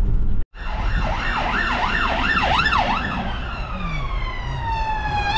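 Emergency vehicle siren sounding over road noise. It first sweeps quickly up and down about twice a second, then changes to a slow falling wail that starts rising again near the end. The sound cuts out completely for a moment about half a second in.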